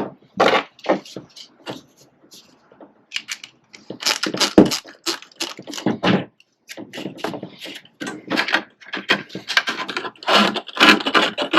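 A flexible metal heater hose being bent and handled, giving a run of irregular crinkling, scraping and clicking with a sharp knock about halfway through.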